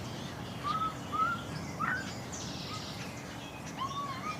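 Jungle ambience of birds calling: a short arched call repeats every half second or so, with a few higher upward chirps and a brief buzzy hiss about two and a half seconds in, over a steady background hiss.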